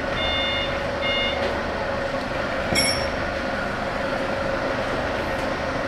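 Tow truck's back-up alarm beeping twice and stopping about a second and a half in, over the steady running of the truck's engine. A single short clink near the middle.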